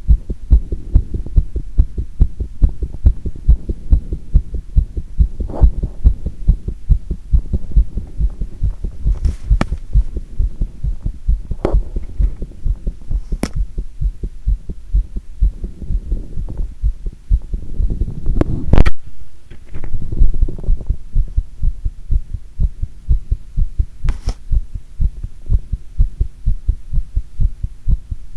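A woman's heartbeat heard close up through a microphone pressed against her chest, fast and steady after squats. A few sharp scratches or knocks cut across it, the loudest about two-thirds of the way through.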